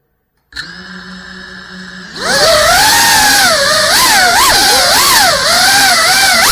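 Cinewhoop FPV drone's brushless motors and ducted propellers: a quieter steady whir starts about half a second in, then at about two seconds it lifts off into a loud whine whose pitch swings up and down with the throttle.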